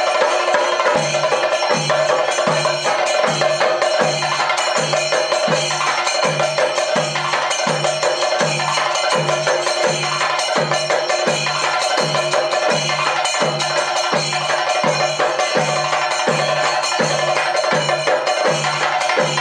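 Thayambaka percussion: chenda drums beaten with sticks in a dense, continuous roll over an even low drum beat of about one and a half strokes a second, with ilathalam hand cymbals clashing and ringing on top.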